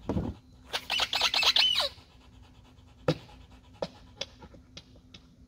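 A dog panting in a quick run of breaths lasting about a second, with a few scattered light clicks afterwards.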